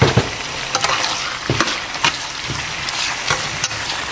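Chicken breast pieces and sliced onions sizzling in hot oil in a frying pan. A metal spoon knocks and scrapes against the pan several times as they are stirred.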